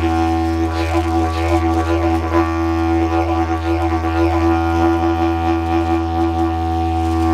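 Didgeridoo played as one unbroken low drone with a steady stack of overtones. The tone is shaped by the mouth into rhythmic wah-like sweeps over the first couple of seconds, then settles into a steadier drone.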